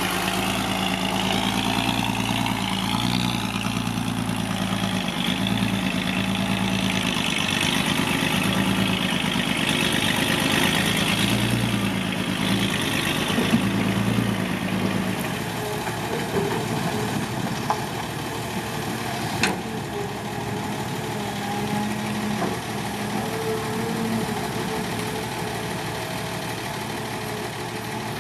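Heavy diesel engine running. It is strong and uneven for about the first fifteen seconds, then settles to a lower, quieter run.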